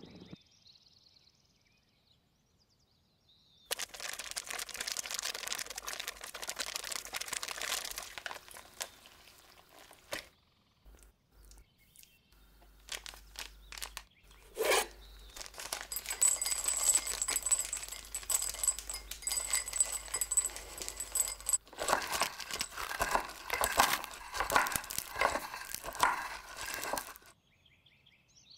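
Plastic spice packets of peppercorns crinkling and rustling as they are handled and torn open, with crackling and crunching near the end.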